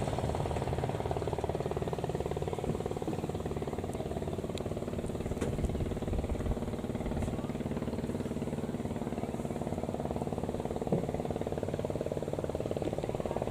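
Kubota DC70 rice combine harvester's diesel engine running steadily, with a fast even pulse, and a few faint clicks along the way.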